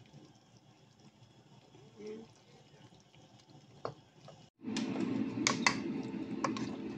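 Quiet room tone with a few faint ticks. About four and a half seconds in, the sound cuts to a louder steady hum with a few sharp clinks of dishware.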